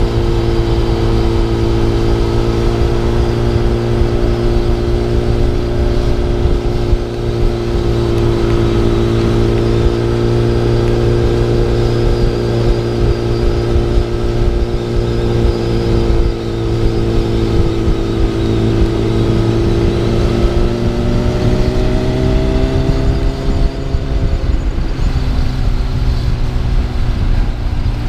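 Kawasaki ZX10R superbike engine running at a steady cruise, with wind noise over the microphone. The engine note climbs a little about two-thirds of the way through, then changes again near the end.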